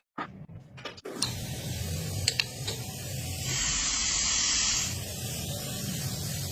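Steady hiss of a compressed-air spray, with a louder, brighter stretch in the middle and a few light clicks.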